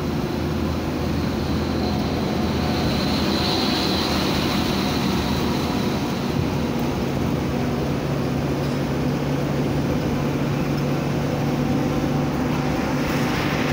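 Intercity bus engine running steadily at road speed, heard from inside the driver's cabin as a low steady hum with road noise. A faint high whine comes in briefly a few seconds in.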